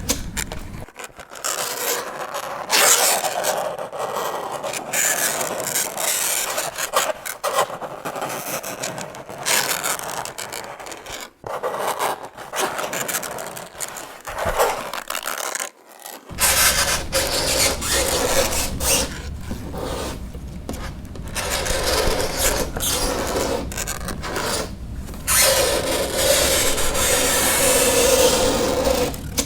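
Fingernails scraping across a chalkboard in long, uneven strokes, some of them with a shrill screech, and two short breaks in the middle.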